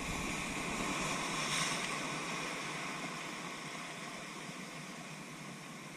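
Ocean surf breaking against large rocks and foaming through the gaps between them, a wash of noise that swells about a second and a half in and then slowly eases.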